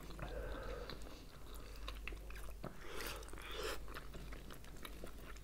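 Two people biting into and chewing khinkali, Georgian meat dumplings: soft wet mouth sounds with many small clicks, and a couple of louder noisy bites about three seconds in.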